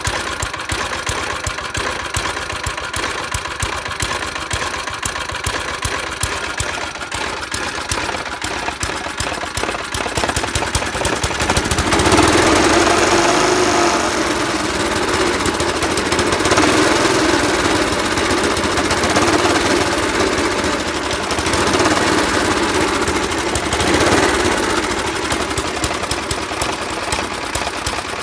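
Qualcast Suffolk Punch lawn mower engine running at a steady speed, then revved up a little under halfway through and rising and easing several times after that. It is running again after a service and carburettor clean, responding to the throttle.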